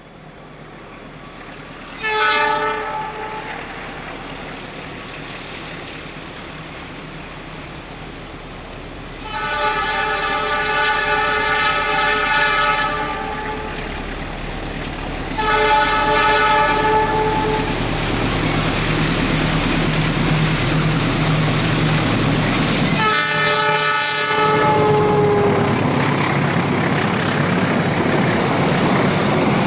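Diesel locomotive's horn sounding four times as the train approaches: a short toot, then three longer blasts, the last one sagging slightly in pitch at its end. Underneath, the rumble of the engine and the wheels on the rails grows steadily louder as the train draws near.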